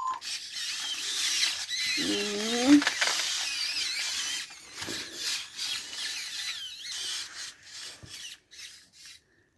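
Robot toy dogs making electronic chirping and warbling sounds: quick high wavering tones that keep changing pitch, with one short lower swooping call about two seconds in.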